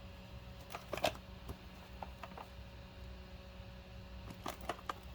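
Soft handling noise: a few light knocks and rustles as a cardboard firework fountain is turned over in the hands, over a faint steady hum.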